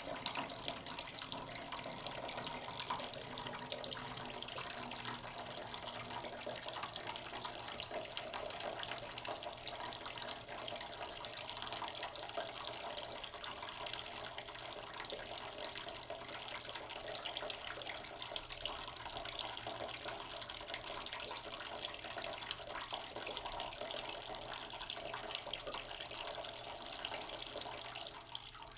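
Steady rushing of running water, like a tap running into a sink.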